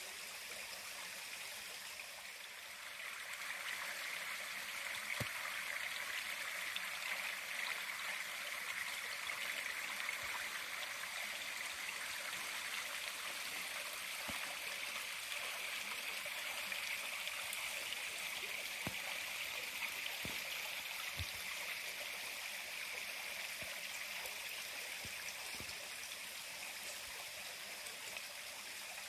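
Steady rush of a flowing creek, louder from about three seconds in, with a few faint soft knocks.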